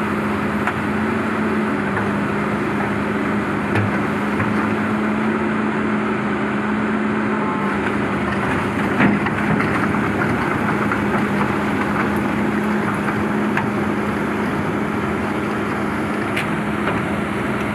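Heavy diesel engine running steadily at a constant speed, with a few scattered knocks and clanks over it.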